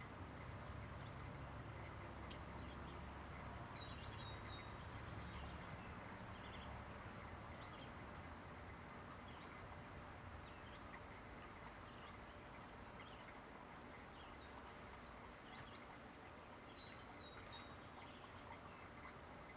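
Faint outdoor ambience: a steady low background noise with a few short, faint, high chirps scattered through it, the kind of distant bird calls heard around a garden bee house.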